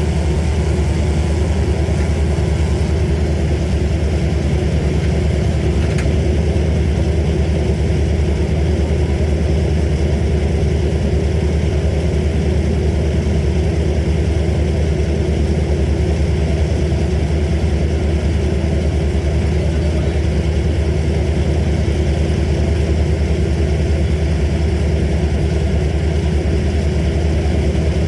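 Engine of heavy tree-service equipment running steadily at a constant speed, a low even hum with no rise or fall.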